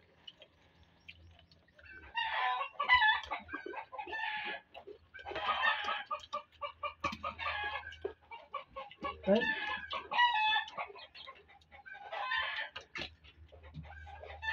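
Chickens clucking and calling, with a rooster crowing, in about five bursts of calls one after another starting about two seconds in.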